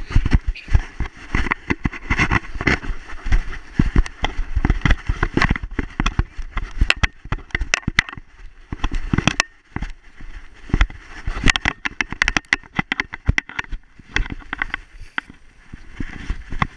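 A dog's running strides through snow, heard from a GoPro HD Hero 3+ strapped to its harness: a fast, irregular patter of thumps and crunches, with the camera knocking and rubbing against the harness and fur.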